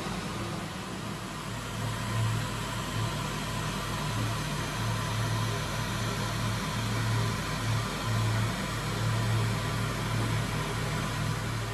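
Steady drone of workshop machinery: a low hum that swells and fades every second or so under an even hiss.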